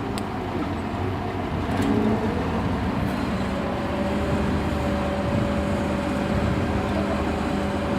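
A heavy vehicle's engine running steadily with a low hum. A steady higher whine joins about three and a half seconds in.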